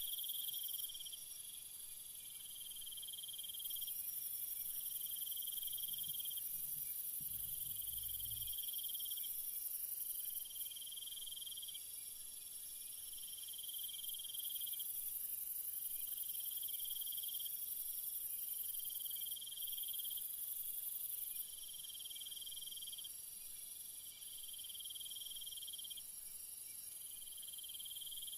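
Night insect chorus of crickets: a steady high shrill, with a lower trill that switches on and off every couple of seconds. A brief low rumble comes about seven seconds in.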